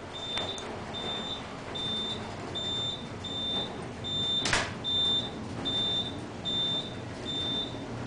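Inside a high-speed passenger elevator car rising fast: a steady low running noise, with a short high beep repeating about every three-quarters of a second, keeping pace with the floors going by on the indicator. A single sharp knock about four and a half seconds in.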